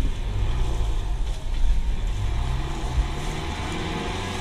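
Sailboat's inboard engine running steadily while the boat manoeuvres slowly into its berth.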